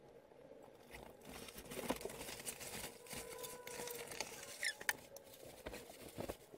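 Fabric rustling as a padded puffer jacket is put on, with a few light clicks and knocks of handling.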